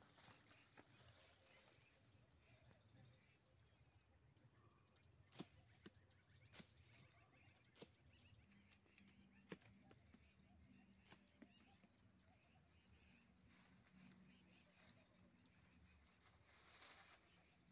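Near silence: faint outdoor ambience with a handful of short, sharp clicks or taps scattered through the middle.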